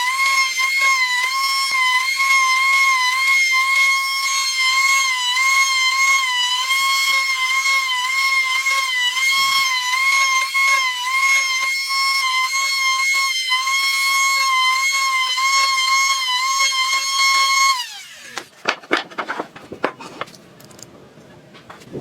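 Electric woodworking power tool running with a steady high whine, its pitch dipping briefly now and then, then winding down about 18 seconds in, followed by a few light knocks.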